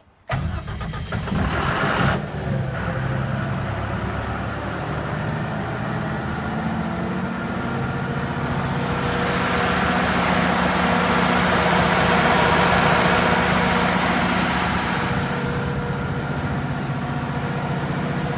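Cummins diesel engine of a 105 kW standby generator starting at the press of the start button, catching almost at once, then running steadily. It is louder and brighter for several seconds in the middle, with an enclosure door open.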